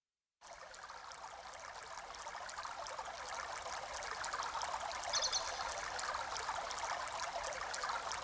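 Running water, like a small stream, fading in from silence and slowly growing louder, with a brief high chirp about five seconds in.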